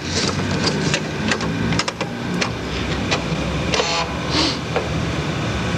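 Fairlight CMI's 8-inch floppy disk drives clicking and chattering as a disk is handled and a voice loads from it, with two short hissy scrapes about four seconds in, over a steady electrical hum.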